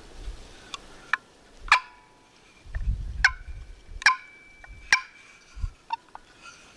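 Wild turkey calling: a handful of short, sharp calls spaced over a few seconds. Wind rumbles on the microphone briefly about three seconds in.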